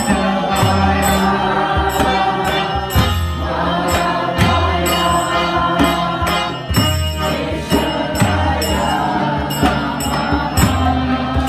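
Kirtan: a group chanting a devotional mantra together, accompanied by a hand drum beating a steady rhythm and small hand cymbals ringing on the beat.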